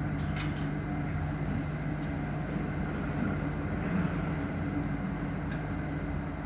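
Steady low mechanical hum with a couple of faint clicks.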